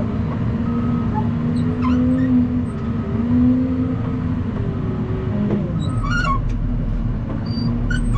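A vehicle engine running steadily with a low drone whose pitch wavers slightly. Short high squeaks sound about six seconds in and again near the end.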